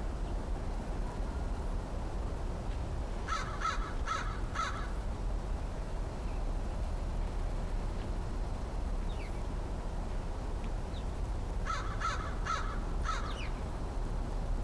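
American crow cawing in two series of about four caws each, the first a few seconds in and the second near the end, over a steady low background rumble.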